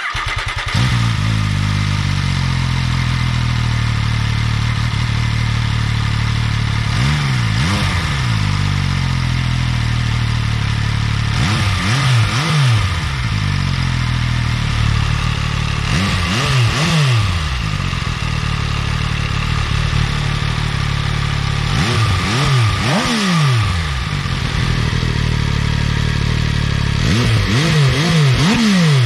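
2014 MV Agusta Brutale 800's three-cylinder engine on its stock exhaust, coming in suddenly, flaring, then settling to a steady idle. It is blipped five times, each rev rising and falling back to idle within a second or two.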